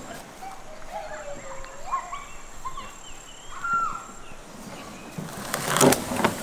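An animal's calls: a string of short whining cries that slide up and down in pitch, followed near the end by a brief loud burst of noise.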